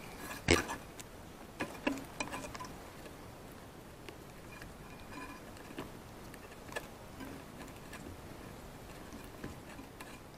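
A few light knocks and scrapes close to the microphone about half a second in and again around two seconds in, then scattered faint ticks over quiet open-air background.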